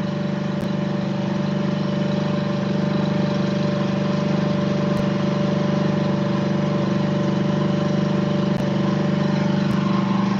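Engine idling steadily at an even pitch.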